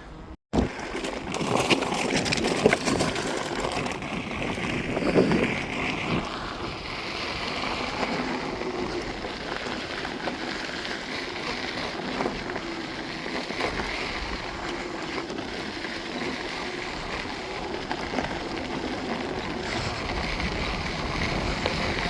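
Steady wind rush on the microphone and rolling noise from riding an electric unicycle, starting just after a short cut to silence at the very beginning.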